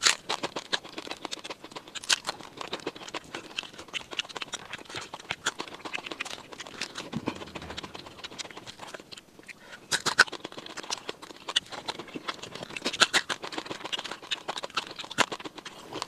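Close-up chewing and biting of fried quail: a steady run of quick, irregular wet clicks and smacks, with louder clusters about two seconds in, around ten seconds and around thirteen seconds.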